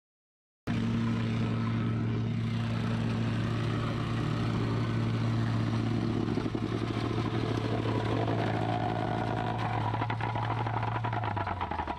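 A petrol-engined vibratory plate compactor runs steadily, compacting a fresh hot-asphalt road patch. The sound cuts in abruptly less than a second in, and near the end the engine's hum drops in pitch as it slows.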